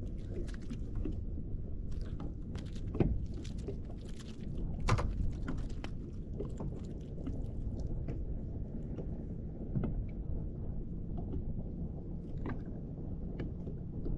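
Kayak drifting on open water, with a steady low rumble of wind and water and a few sharp knocks against the hull or gear along the way.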